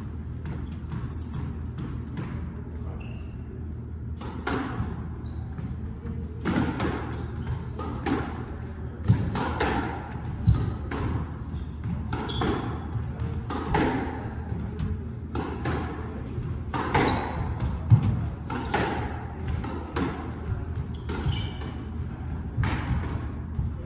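Squash rally: a squash ball struck by rackets and smacking off the court walls, sharp echoing hits about once a second that start about four seconds in, over a steady low hum.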